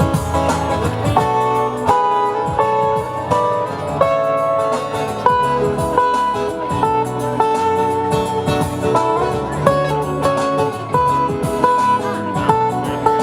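Instrumental guitar music: a melody of single plucked notes played over a lower strummed accompaniment.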